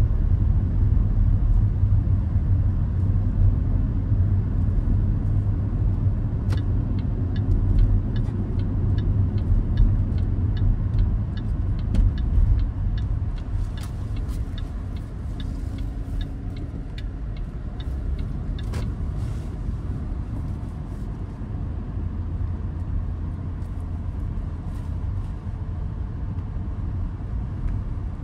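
Inside the cabin of a 2013 Range Rover Sport 5.0 V8 on the move: a steady low engine and road rumble. Through the middle stretch the turn-signal indicator ticks evenly, about two ticks a second, while the car turns at a junction.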